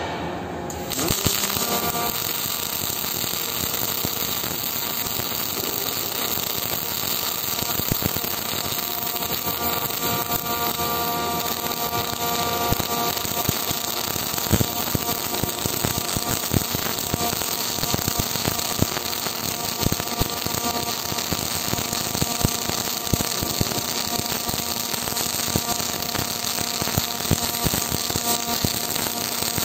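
MIG (gas metal arc) welding arc striking up about a second in, then crackling steadily with many sharp spatter pops as the bead is run.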